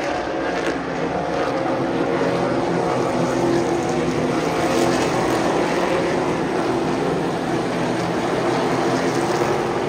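Super late model race cars' V8 engines running on the oval, several engines at once making a steady, layered drone.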